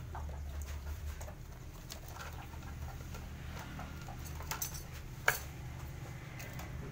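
Hard black plastic parts of an aquarium filter being handled and fitted together: scattered clicks and taps with some plastic-bag rustle, and one sharp snap a little past five seconds in, over a steady low hum.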